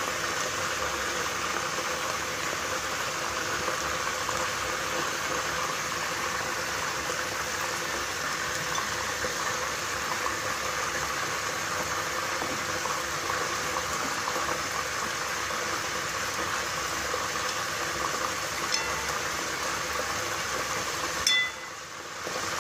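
Onion-and-spice masala frying in oil in a wok as it is stirred: a steady sizzling and bubbling. The sound drops away briefly near the end.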